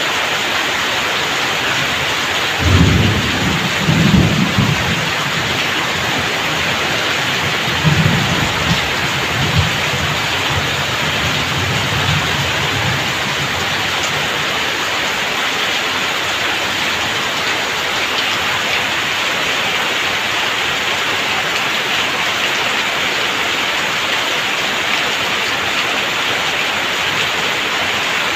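Heavy rain pouring steadily on a roof and streaming off the eaves onto wet ground. Low thunder rumbles about three seconds in, and again from about eight seconds in, dying away a few seconds later.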